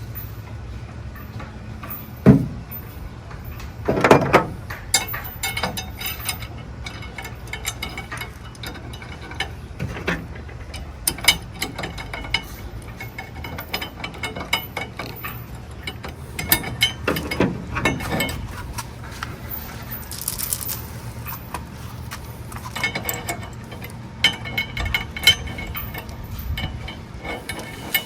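Metal anchor chain and a stainless steel anchor swivel clinking and knocking as they are handled and fitted together, with many small clicks and a few louder knocks.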